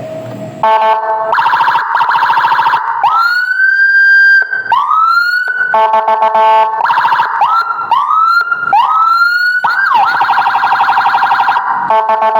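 Electronic emergency-vehicle siren run through its tones: buzzing horn-like tones with a fast rattle, two rising wails, a run of four or five short quick whoops, and then a fast warble.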